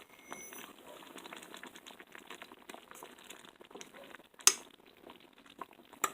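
A pot of bouillon with dumplings simmering, with faint, crackly bubbling and small ticks. A single sharp clink comes about four and a half seconds in.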